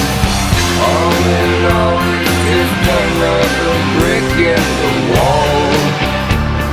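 Rock music soundtrack: a melody that slides up and down in pitch over steady low bass notes.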